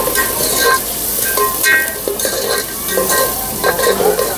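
Metal spoon stirring food in a frying pan, with repeated clinks and scrapes that set the metal ringing briefly, over a steady sizzle of frying.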